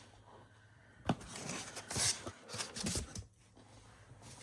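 Nail polish bottles being handled and set down: a quick series of clicks and light knocks starting about a second in and lasting about two seconds.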